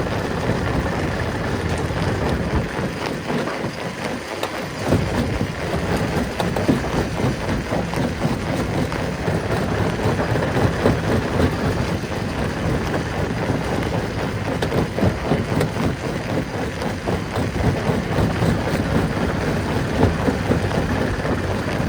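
Rock crusher running: a dense, irregular clatter of stone being broken over a steady low mechanical rumble, the low rumble briefly dropping away about four seconds in.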